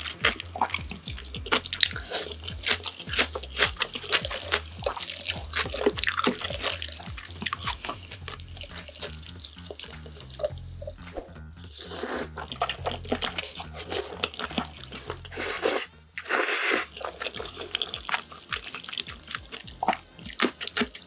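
Close-miked eating sounds: wet chewing and smacking of jajangmyeon noodles in black bean sauce, with loud slurps of the noodles about twelve seconds in and again around sixteen seconds in.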